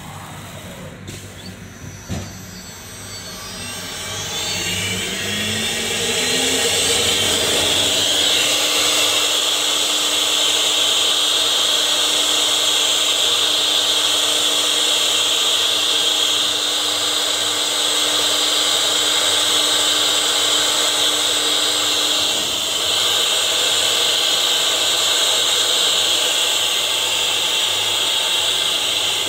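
CNC wood router spindle spinning up with a rising whine over the first several seconds, then running at steady high speed while the bit cuts along the board. A short click comes about two seconds in.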